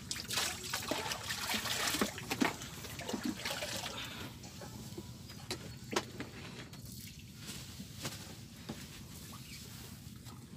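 Water thrown from a metal bowl splashing and pattering onto the lake surface, with sharp clicks and knocks of handling, busiest in the first couple of seconds and sparser after.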